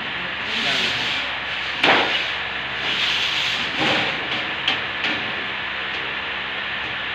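Sheet steel sliding and scraping over a metal worktable as it is pushed into a press brake, in two long swells of rubbing noise, with two sharp metal knocks about two and four seconds in. A steady hum from the running press brake lies underneath.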